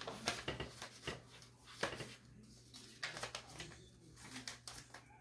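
Paper rustling with light clicks and knocks as sheets of paper and a folder are handled and leafed through, in short irregular bursts that are busiest in the first two seconds.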